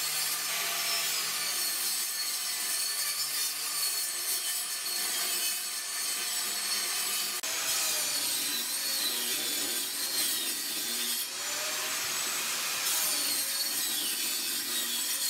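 Benchtop table saw ripping pallet-wood boards lengthwise along the fence: the blade cutting steadily through the wood, with a high whine that wavers in pitch as the board is fed.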